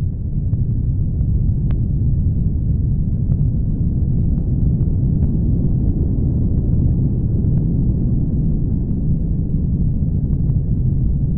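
Loud, steady low rumbling noise with a few faint clicks over it.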